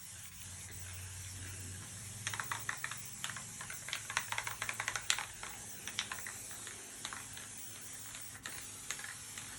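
Aerosol spray paint can hissing, with an irregular crackly spitting and sputtering from about two seconds in through the middle. The fault lies in the can itself, not the nozzle, in the painter's judgement.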